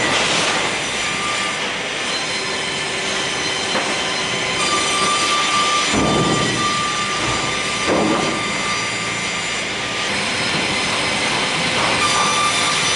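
Multiple rip saw with four circular blades running and sawing a live-edge board: a loud, steady machine noise with a thin high whine, swelling heavier about six and eight seconds in.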